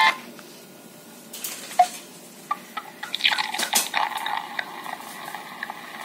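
Nokia 3230 phone's speaker playing a quiet ringtone preview while its tone list is scrolled: a few short clicks and blips with faint tones, busiest from about one and a half to four and a half seconds in.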